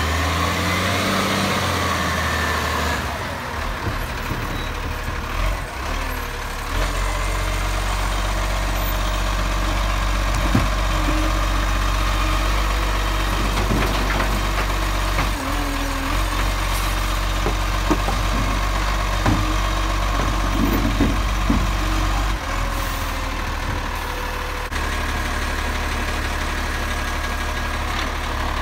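Side-loading garbage truck with a Bucher GenV 22 body, its engine speeding up at the start and running raised while the hydraulic arm lifts a wheelie bin, tips it into the hopper and lowers it. Scattered knocks and clunks come from the bin and the arm. The engine drops back towards idle about three-quarters of the way through.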